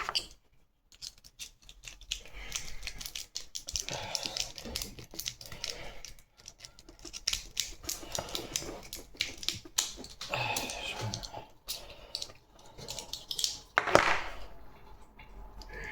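Peterson steel snake rake being raked in and out of a Master padlock's pin-tumbler keyway under a tension wrench: quick irregular clicks and scraping as the pins are bounced, with a louder sharp click about 14 seconds in.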